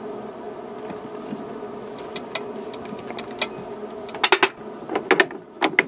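Steady machine hum, then several sharp metallic clicks and clinks in the last two seconds from work at a TV16 lathe's three-jaw chuck, where a duralumin blank is being re-clamped to turn its other side.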